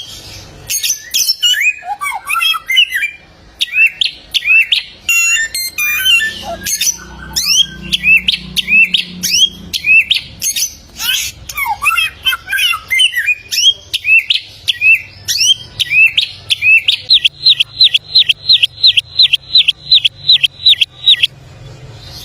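Male bare-throated whistler (Samyong) singing a long, varied song of quick whistled and chirping notes. Near the end it runs into a fast, even string of identical rising notes, about six a second, before breaking off.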